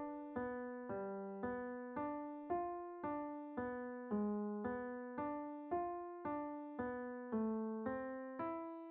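Solo piano playing a slow, even broken-chord figure in the low-middle register, about two notes a second, each struck note fading before the next. The track is mixed as 8D audio, meant to move around the listener on headphones.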